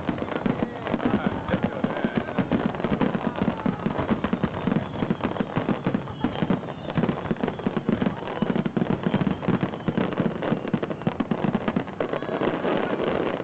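Aerial fireworks shells bursting in a dense, continuous barrage of overlapping bangs and crackles, typical of a fireworks finale.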